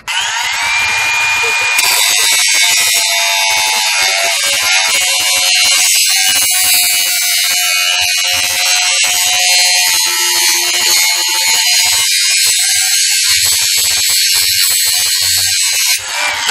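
Cordless 20-volt brushless angle grinder spinning up with a rising whine, then grinding metal clamped in a vise with a loud, steady rasp and hiss. Near the end the disc comes off the work and the motor winds down.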